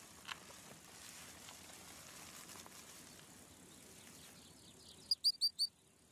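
Faint outdoor ambience: a soft hiss with scattered light ticks. Near the end it drops away and four quick, high chirps follow in a row.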